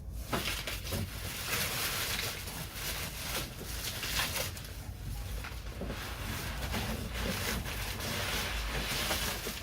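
Cardboard packaging being handled and shifted about: continuous rustling and scraping with scattered light knocks.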